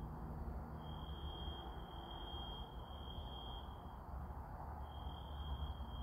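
Faint, high-pitched fire alarm sounding from a nearby apartment building: three long beeps close together, a pause of about a second, then the pattern starts again.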